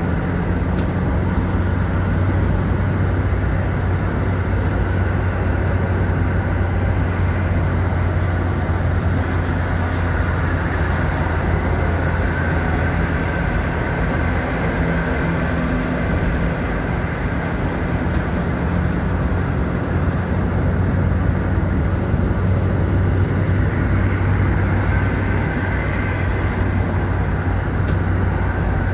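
Car cabin noise while driving on a highway: steady engine and tyre noise with a low hum underneath.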